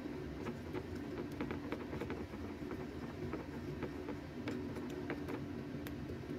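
Metal spoon stirring thick flour-and-egg batter in a ceramic bowl, with irregular light clinks and scrapes against the bowl, over a steady low hum.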